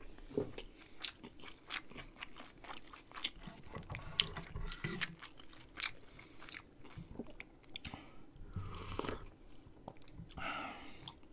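Close-miked eating sounds: wet chewing and smacking of a mouthful of dumpling, with many short sharp clicks. Near the end come two longer slurps of soup broth from a spoon.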